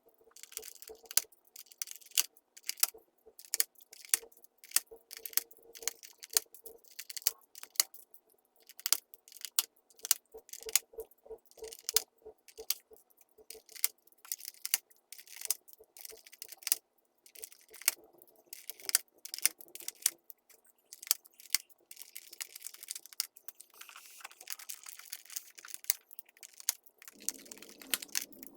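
Plastic keyboard keycaps clicking and clattering against each other and the keyboard as they are handled, in quick irregular clicks several times a second. A stretch of scratchy rubbing comes about three-quarters of the way through.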